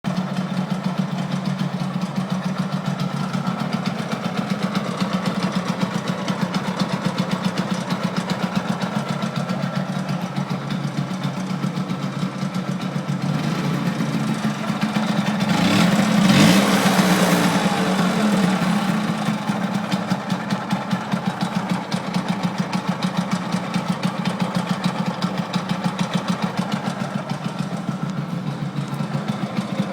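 Vespa PK 50's 49 cc two-stroke single-cylinder engine idling with a rattle, revved briefly about halfway through, then settling back to idle.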